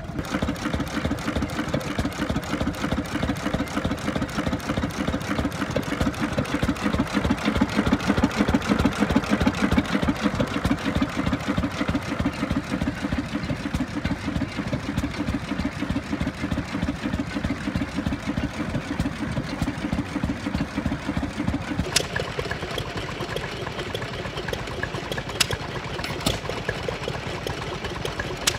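Small vintage stationary engine running with a rapid, steady beat. About three-quarters of the way through the deeper part of the sound drops away, leaving a lighter running beat with a few sharp clicks.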